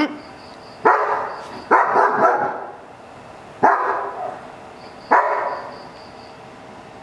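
German Shepherd guard dog barking: about five loud barks, the second and third close together, the rest spaced about a second and a half apart.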